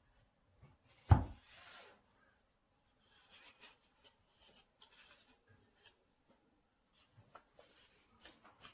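Handling noises of a phone box and its packaging: a sharp knock about a second in as something is set down, followed by a brief sliding rustle, then light rubbing and small taps.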